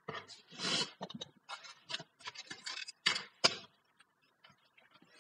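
Computer mouse and keyboard clicks: a quick, uneven series of small clicks that thins out after about three and a half seconds.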